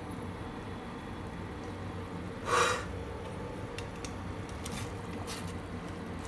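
Soup simmering in a stainless steel pot on a gas burner, a steady low rush, with one short scrape of metal tongs against the pot about two and a half seconds in and a few light clicks after it.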